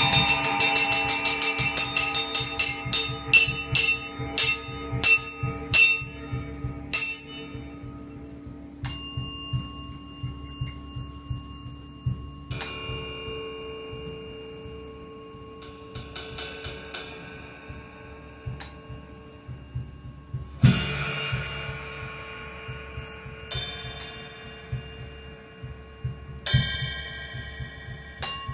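Improvised electric guitar and drum kit duo. A quick run of stick strokes slows and fades over the first six seconds or so, then sparse cymbal and bell-like strikes ring out over steady, held guitar tones.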